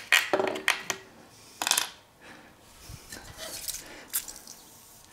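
Small metal brake master cylinder parts (piston and spring) clicking and tapping as they are handled and cleaned, with a few sharp clicks in the first two seconds and quieter handling after. A faint hiss of a spray can near the end.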